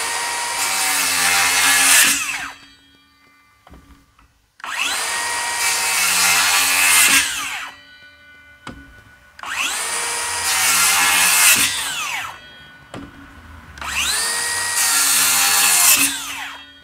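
DeWalt DCS577 FlexVolt brushless cordless rear-handle circular saw with a 7-1/4" blade making four short full-depth crosscuts through 2x lumber. Each time the motor spins up, the blade runs through the wood for two to three seconds, and the motor winds down, with a short pause before the next cut.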